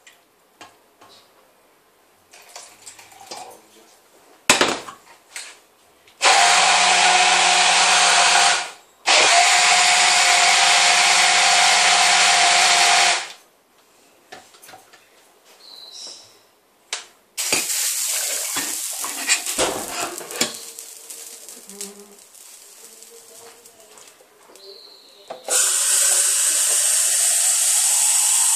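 A small electric kitchen appliance motor runs in two bursts of a few seconds each, with a short pause between. Later water runs, and near the end a tap runs steadily.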